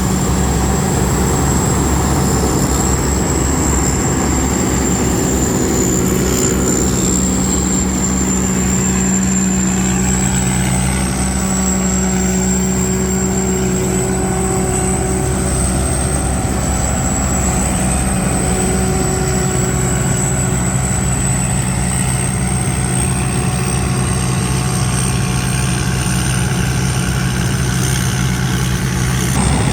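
Combine harvester's engine running steadily, with a constant high-pitched whine above the engine hum.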